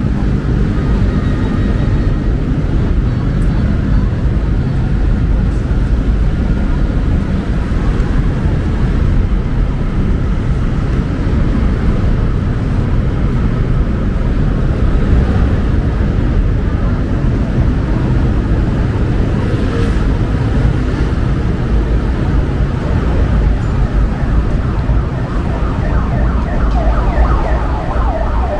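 Steady rumble of city street traffic. Near the end, an emergency vehicle's siren begins to wail, its pitch sweeping up and down.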